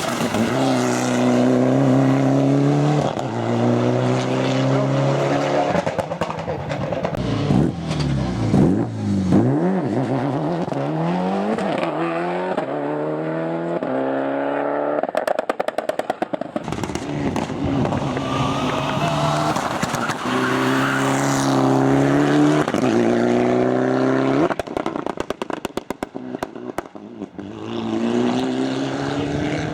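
Mitsubishi Lancer Evo 9's turbocharged four-cylinder engine driven hard at full throttle, revving up through the gears again and again with quick gear changes between pulls. A messy stretch of rapid downshifts about a third of the way in, and bursts of rapid pops and cracks when it lifts off the throttle in the middle and near the end.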